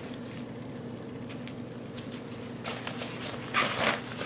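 A lightweight ripstop-nylon daypack being handled as its straps are undone and the main compartment opened: a few faint clicks of buckles and fabric, then a short rasp of nylon about three and a half seconds in, over a steady low hum.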